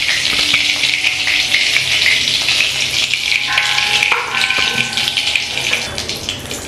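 Hot mustard oil sizzling and crackling steadily in a wok, left over from frying fish pieces and still bubbling with their moisture.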